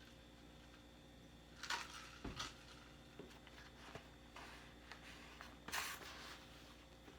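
Faint rustling and handling noises: a few short, crisp rustles about two seconds in and again near six seconds, over a low steady room hum.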